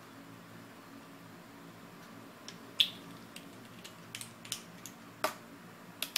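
Small sharp clicks and taps from a metal vape atomizer and a plastic e-liquid dropper bottle being handled while juice is dripped onto the coil, the loudest a little under three seconds in, over a faint steady hum.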